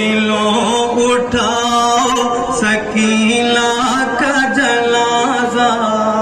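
Male chanting of an Urdu nauha, a Shia mourning lament, sung in a slow, drawn-out melody with long held notes.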